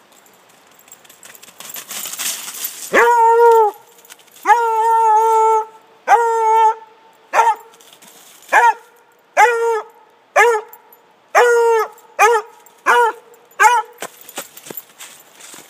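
Redbone Coonhound baying: about ten loud, drawn-out barks. The first few each last about a second, and the later ones are shorter and drop in pitch at the end.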